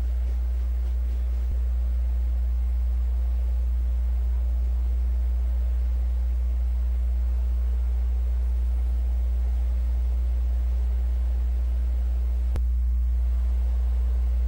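Steady low electrical hum with a fainter hiss above it, unchanging throughout.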